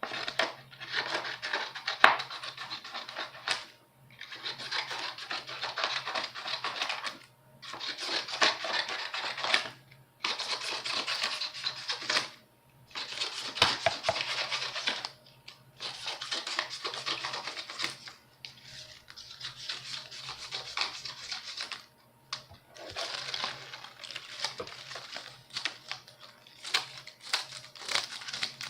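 Scissors cutting paper in runs of rapid crisp snips, each run lasting a few seconds with short pauses between.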